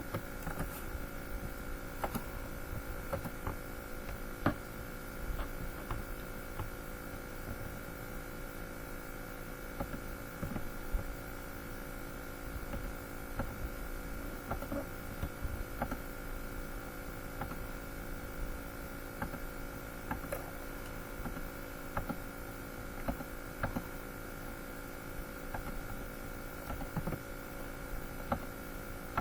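Steady electrical hum with scattered light clicks throughout.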